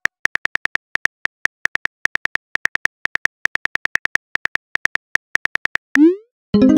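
Phone keyboard click sound effects for a text message being typed, in a quick, even run of about six taps a second. Near the end the clicks stop, a short rising swoosh sounds as the message is sent, and a ringing tone starts.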